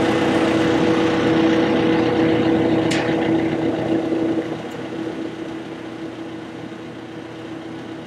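An engine running steadily with a constant hum, growing quieter about halfway through, with one brief sharp sound about three seconds in.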